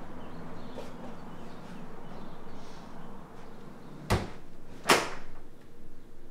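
Someone coming in through a house's front door and setting things down on the small wooden table beside it: two sharp knocks under a second apart, about four seconds in, the second one louder. A low steady hum stops at the first knock.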